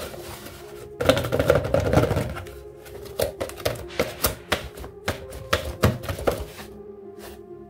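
A small cardboard box being handled and its flaps folded open: a loud rub and scrape of cardboard about a second in, then a run of sharp clicks and taps as the flaps are worked loose, over faint steady background music.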